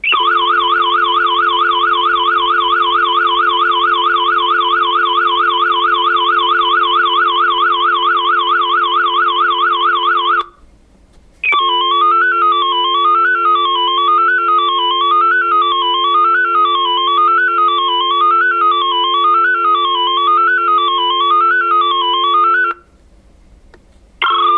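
A landline phone giving out a steady dial tone with a loud, piercing, high-pitched warbling tone on top. The warble goes fast for about ten seconds, cuts out for about a second, then returns as a slower rise-and-fall sweep, and cuts out again near the end.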